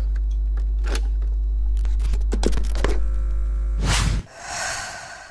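Outro sound effect: a loud, steady low drone with scattered clicks and scratchy sweeps over it, which stops about four seconds in with a whoosh that fades out.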